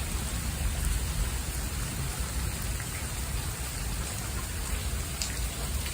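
Steady rain falling, an even hiss with a deep, constant rumble underneath and a few faint drop ticks.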